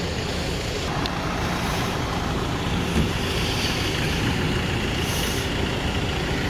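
Steady rumble and hiss of an idling motor vehicle, most likely a truck or bus, with no change in level.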